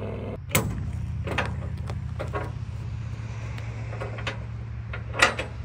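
Turbocharged LS V8 in a race truck idling steadily and smoking from the exhaust, which the owner suspects is a cracked ring land. A few sharp clicks or knocks sound over it, the loudest near the start and near the end.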